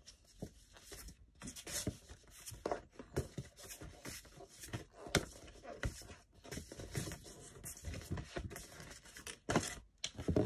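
Stiff cardboard flashcards being handled: lifted, fanned and shuffled against each other, a run of irregular rustles, scrapes and soft slaps.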